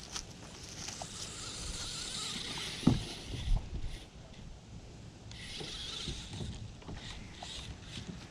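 Air Hogs RC stunt car running over the ground, a hissing noise in two stretches, with two thumps about three seconds in.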